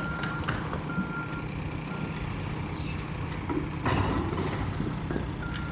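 A vehicle's reversing alarm beeping on one steady high tone, three beeps in the first two seconds and another near the end, over a running engine, with a few sharp knocks.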